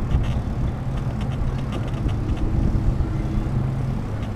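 Bicycle rolling along a paved path, heard from a camera mounted on its handlebars: a steady low rumble with scattered small rattling clicks.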